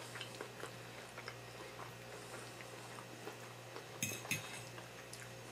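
Metal fork scraping and tapping on a ceramic dinner plate while pulling apart roasted Cornish hen, faint small clicks throughout, with two sharper clinks about four seconds in.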